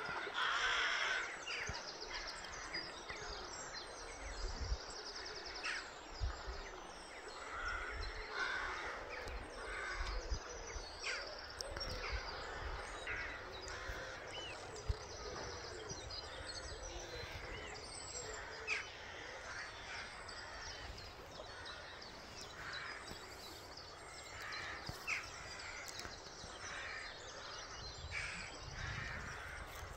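Birds calling, among them harsh crow caws and short chirps scattered throughout, over a steady hiss of flowing river water.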